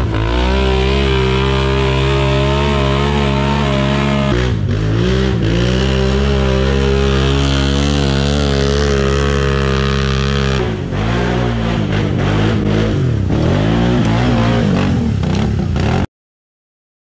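ATV engines revving hard under load on a steep dirt hill climb, with brief dips in engine speed about four and eleven seconds in. The sound cuts off abruptly about a second before the end.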